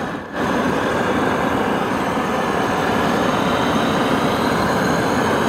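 Gas torch on a red hose burning with a steady rush, blowing hot air up into a paper hot-air balloon to inflate it. The rush starts about a third of a second in.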